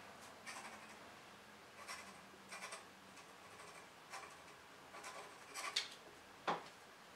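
Pen scratching on paper in short groups of strokes as a letter is written by hand, with one sharper tap near the end.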